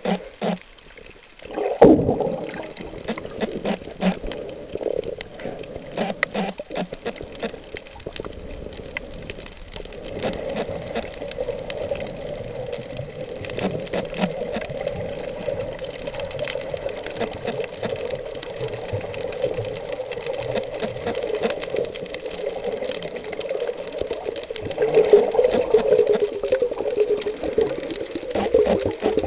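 Underwater sound, muffled and steady, with scattered crackling clicks. There is a sharp knock about two seconds in, and the sound grows louder and busier near the end.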